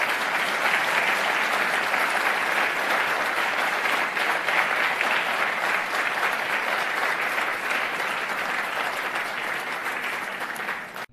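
Audience applauding steadily, a dense crowd of hand claps that cuts off suddenly near the end.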